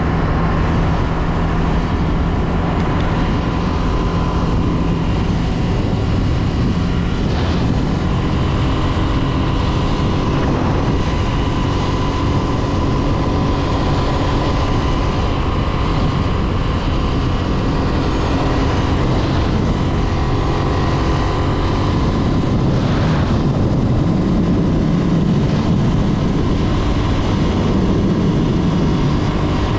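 Honda CB 250F Twister's single-cylinder engine running steadily at road speed, heard from the riding motorcycle under a steady rush of wind and road noise.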